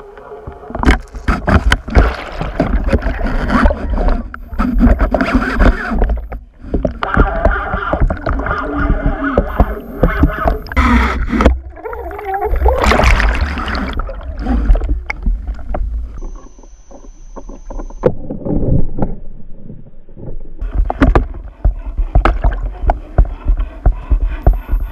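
Muffled water noise and repeated knocks and bumps on an underwater camera as it is moved about, over a constant low rumble, with a few muffled, voice-like wavering sounds in between.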